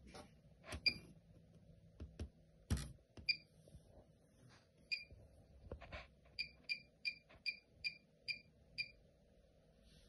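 Bosch front-loading washing machine's control panel beeping as its program dial is turned and its buttons pressed, with clicks and a knock from the dial and buttons. The beeps come singly at first, then in a quick run of about ten, about three a second, as the settings are stepped through.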